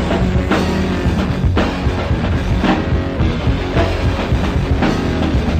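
Instrumental passage of a lo-fi rock song: electric guitar, bass and drums playing on a steady beat of about two strokes a second, with no vocals.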